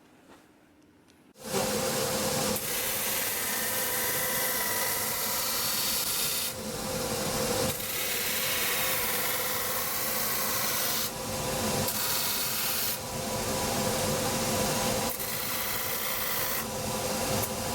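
A motorised abrasive wheel in a cobbler's shop starts about a second and a half in and runs in long stretches with brief dips as the shoe is pressed to it and eased off, working the leather sole around the newly fitted steel toe tip.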